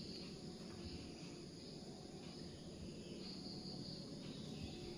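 Quiet room tone with faint insect chirring, a high thin trill that swells briefly near the start and again about three seconds in.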